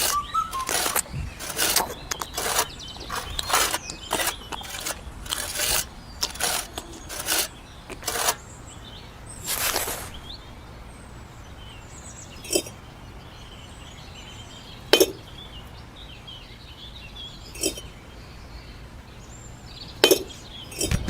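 Small hard pieces clicking, tapping and scraping against each other in quick succession for about ten seconds. Then come a few separate sharp clinks, each with a brief ring, a few seconds apart, with faint bird chirps in the background.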